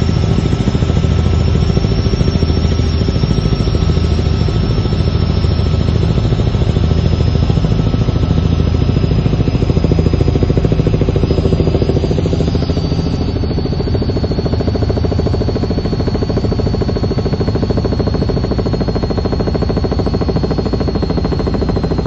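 Helicopter turbine and rotor heard from inside the cabin: a steady high whine that sinks slightly in pitch over the stretch, over a low pulsing rotor beat.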